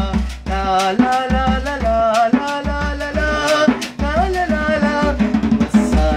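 A man singing a Sinhala song with vibrato, accompanying himself on a small hand drum slung from a shoulder strap, with a steady beat of drum strokes under the voice.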